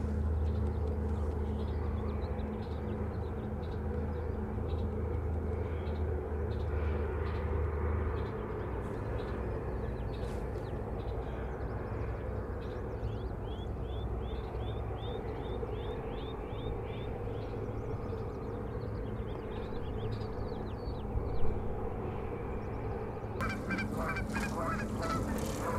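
Birds calling over a steady low outdoor rumble: a quick run of short, falling calls about halfway through, then several birds calling at once near the end.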